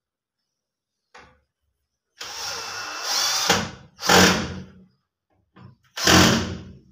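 Handheld power drill driving screws while a handle is fitted to a wooden wardrobe door: one run of about a second and a half starting two seconds in, then two short bursts about two seconds apart.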